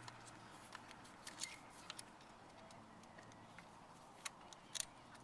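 Faint scattered clicks and light taps of small parts being handled during ignition switch work, a few of them in quick pairs, over a low steady hum.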